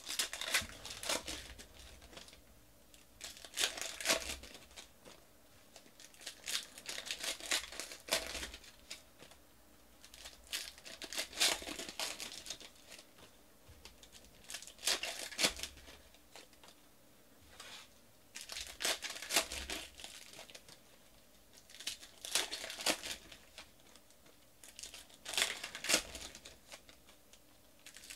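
2019 Panini Elite Extra Edition trading-card pack wrappers being torn open and crinkled by hand, in about eight short bursts a few seconds apart.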